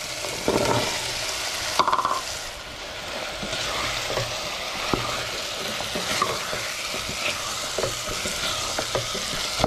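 Onion-and-tomato base sizzling in a metal pot as cubed raw potatoes are tipped in and stirred with a wooden spoon. The spoon scrapes and knocks against the pot over a steady frying hiss, with a brief clatter near the start as the potatoes go in.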